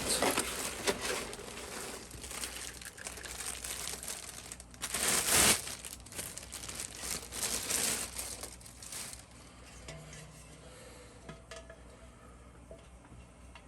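Packaging crinkling and rustling as the ceiling light fixture is unwrapped, with the loudest burst about five seconds in. After about nine seconds it settles into quieter, scattered handling sounds.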